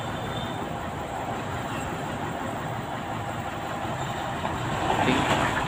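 Fuso tractor head's 10DC11 diesel engine running steadily at low speed as the truck and its flatbed trailer crawl through a tight turn on a muddy road.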